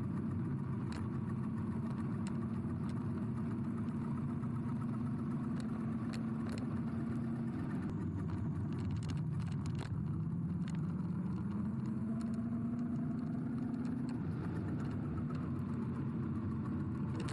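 A vehicle's motor running steadily with a low hum. Its pitch drops a little about eight seconds in, then climbs back over the next few seconds, as with a change in speed.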